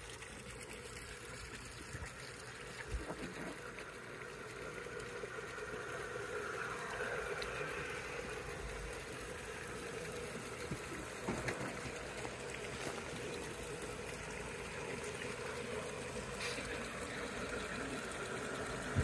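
Diesel engine sound from the onboard sound decoders of G-scale Bachmann Dash-9 model locomotives, a steady rumble that grows louder as the train comes nearer, over the trickle of a small pond waterfall.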